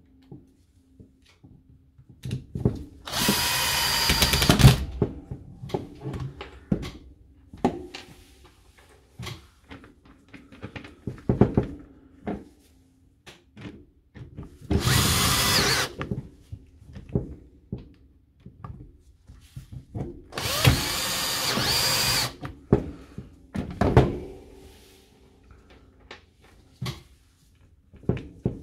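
Cordless drill-driver running in three short bursts, each lasting a second or two, as it drives screws back into a Milwaukee M18 Fuel impact wrench's housing during reassembly. Between the bursts come clicks and knocks from handling the tool and parts.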